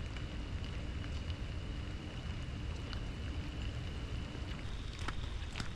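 Steady patter of light rain, joined about five seconds in by a few sharp footstep clicks on the wet trail.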